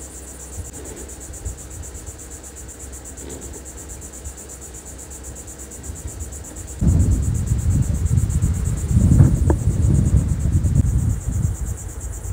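Insects buzzing in a steady, high, fast-pulsing drone. About seven seconds in, a loud, low, uneven rumble joins it.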